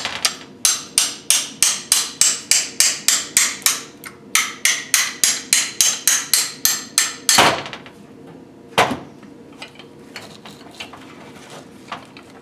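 A hammer tapping a socket extension used as a drift, about three even metallic strikes a second, to knock out the piston pin so the cracked-skirt piston can come off its connecting rod. The run ends with a harder blow about seven seconds in, one more strike a second and a half later, then a few light taps.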